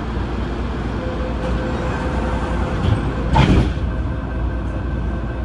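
Adtranz-CAF electric multiple unit of the MTR Tung Chung Line running, with a steady rumble of wheels on track and a faint thin tone partway through. A louder clatter comes about three and a half seconds in.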